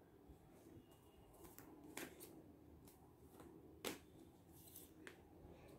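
Faint shuffling of a deck of angel message cards, with a few short card snaps; the sharpest come about two seconds and about four seconds in.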